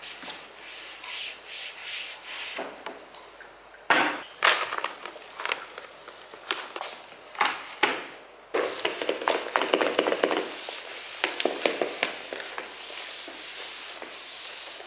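Irregular knocks, taps and rubbing as objects and magazines are moved and set down on a coffee table's lower shelf while it is wiped clean; the clatter comes thicker from about halfway through.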